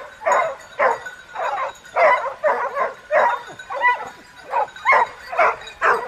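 Hunting dogs barking and yelping in quick succession, about two barks a second at varying pitch, some calls overlapping.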